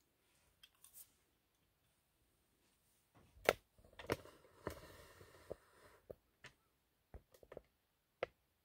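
A few faint clicks and taps, with a brief light rustle between them, as a die-cast toy car ('55 Gasser) is set down on a tabletop by hand. Scattered small handling clicks follow near the end.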